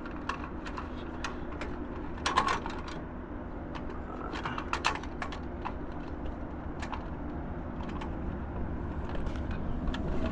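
Scattered light clicks and clinks of small parts and tools being handled, with a louder cluster about two seconds in, over a steady low hum.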